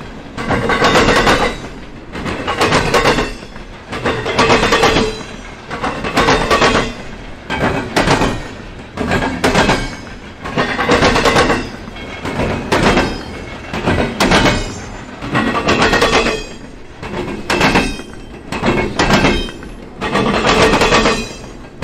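Double-stack intermodal freight train rolling past, its steel wheels clattering over the rails in a loud, swelling rhythm about every two seconds as car after car goes by.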